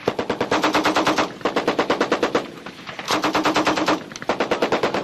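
M60 7.62 mm machine gun firing four short bursts of about a second each, at roughly ten rounds a second, with brief pauses between bursts.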